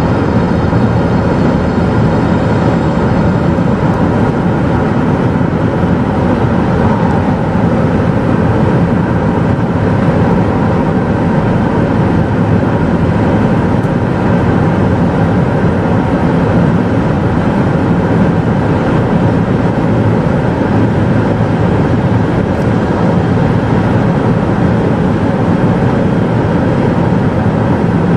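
Steady in-cabin drone of a 2016 Volvo XC90 D5 at high speed under full acceleration in eighth gear, its 2.0-litre twin-turbo four-cylinder diesel pulling hard while speed climbs slowly toward 200 km/h, mixed with wind and road noise.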